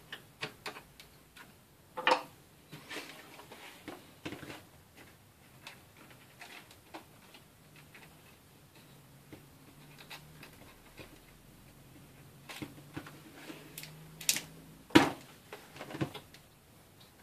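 An Asus X51R laptop being handled: scattered small clicks and plastic taps as its wires are pulled through. There is a sharp knock about two seconds in, and the loudest knocks come near the end as the laptop is turned over and laid flat.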